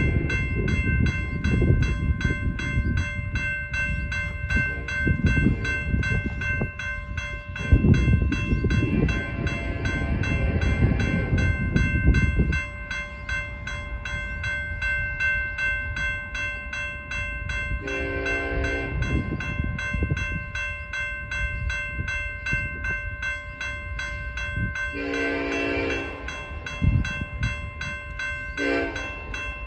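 Railroad crossing bell ringing steadily, its rapid strokes continuous over a low rumble that stops abruptly about twelve seconds in. Later a freight train's air horn blows three times: two long blasts and a short one.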